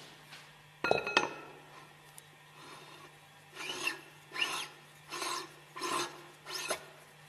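Steel bell-shaped puller piece being screwed by hand into the thread of the annular piston in a Westfalia separator bowl. There are two sharp metallic clinks about a second in, then five short strokes of metal scraping on metal as it is turned, about two-thirds of a second apart.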